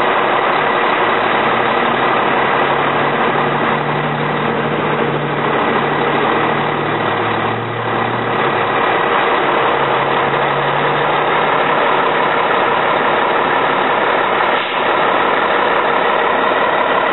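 Fire truck diesel engine running steadily. A deeper engine note comes in a few seconds in and fades out past the middle.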